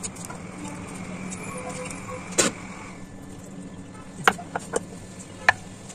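A bowl and kitchen utensils being handled: several sharp separate clicks and knocks over a steady low background hum.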